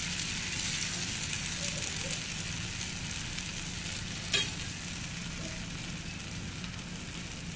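Gram-flour batter (besan chilla) sizzling in an oiled pan, a steady frying hiss, while a steel spoon spreads it at first. A single sharp tap about four seconds in.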